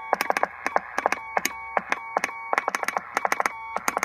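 Morse code keyed on a Heathkit HW-16 transceiver: a rapid, irregular string of sharp clicks at each keyed element, with the receiver-monitored CW note as a steady high tone on the longer dashes. This is instantaneous full break-in (QSK) working, with a slight chirp from the crystal-controlled transmitter.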